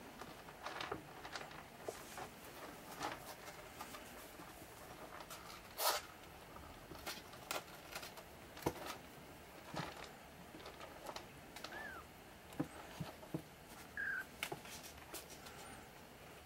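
26-day-old Maine Coon kittens' paws and claws pattering and tapping on a wooden floor and shelf and against a plastic litter tray, with scattered faint clicks and one sharper click about six seconds in. Two brief faint squeaks come in the second half.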